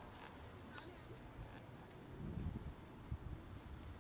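Insects in the surrounding trees giving a steady high-pitched drone, with soft low rumbles around the middle.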